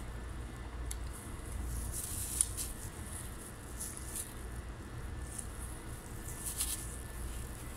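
Close-up eating sounds: soft smacks and small clicks of a person handling and chewing fresh leafy greens with plastic-gloved hands. One sharper click comes about two and a half seconds in, over a low steady hum.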